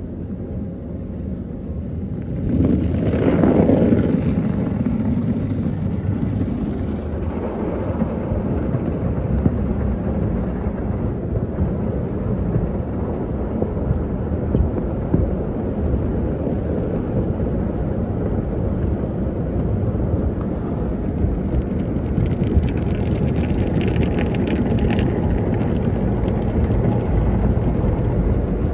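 Automatic tunnel car wash heard from inside the car: cloth wash strips slapping and rubbing over the windshield and hood under spraying water, a steady rumbling wash noise. It swells louder about three seconds in, and a patch of crackly spatter comes near the end.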